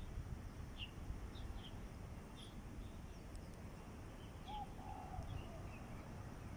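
Birds chirping: short high chirps come scattered, about one or two a second, with a lower call about four and a half seconds in, over a faint low background rumble.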